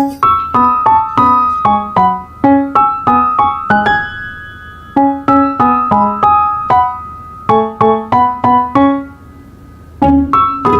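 Instrumental ringtone melody played as single struck piano-like keyboard notes. The notes come in quick phrases, with a held note about four seconds in and a short lull near nine seconds before the tune picks up again.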